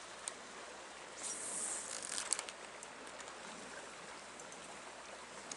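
Faint steady rush of a flowing creek, with a few light clicks and rustles of handling near the water.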